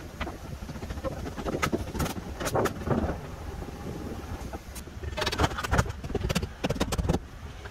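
Scattered sharp knocks of carpentry on wood framing, hammer blows and wood striking wood, coming thick and fast about five to seven seconds in, over a low wind rumble on the microphone.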